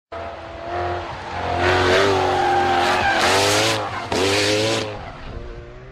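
Car engine revving up and down several times, with two bursts of tyre screech about three and four seconds in, then fading away.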